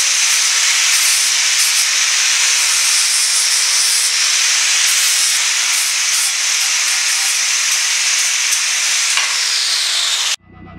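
Electric angle grinder with a 40-grit sanding disc running steadily with a high whine, grinding the rough surface off a firewood branch. It cuts off suddenly near the end.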